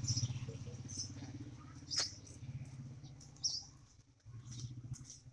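Short, high bird chirps every second or so, over a vehicle engine that fades away in the first few seconds.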